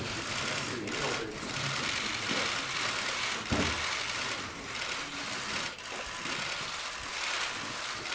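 A barrage of press camera shutters clicking rapidly and continuously, with one dull thump about three and a half seconds in.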